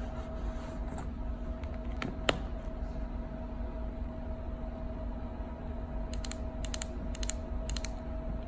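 Small sharp clicks and taps from handling a plastic lipstick case and its packaging: two clicks about two seconds in, then a run of short paired clicks from about six to eight seconds in, over a steady low hum.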